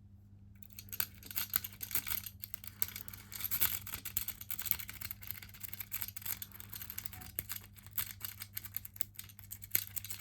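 Steel lock-picking tools scratching and clicking rapidly and irregularly against the pins and keyway of a cheap door latch lock, starting about a second in.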